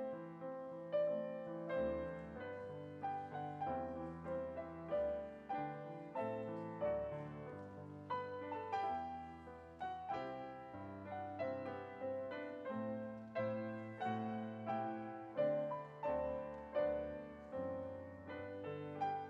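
Piano playing a slow, gentle instrumental piece, with chords and melody notes struck about once a second and left to ring.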